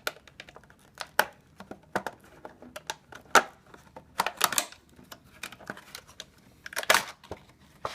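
Packaging being handled: irregular clicks, taps and short crinkles of plastic and cardboard, with a few louder clacks about three and a half and seven seconds in.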